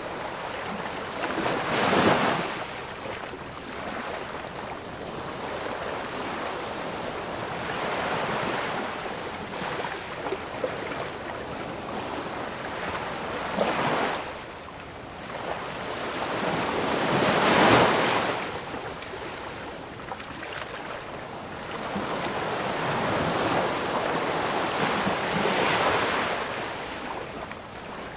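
Ocean waves rolling in and breaking on the shore, a steady rush of surf that swells with each wave. The loudest waves come about two seconds in and a little past halfway.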